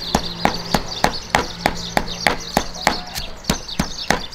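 Stone pestle pounding chillies and garlic into curry paste in a stone mortar: a steady run of sharp knocks, about three a second, that stops near the end.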